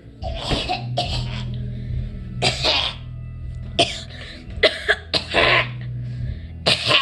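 A woman coughing hard in a run of about six bouts, a coughing fit set off by spicy food.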